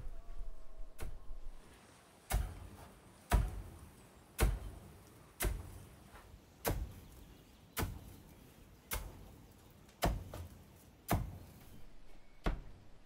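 A steady series of sharp knocks, about one a second, ten in a row starting about two seconds in, as a man works inside a wooden shed.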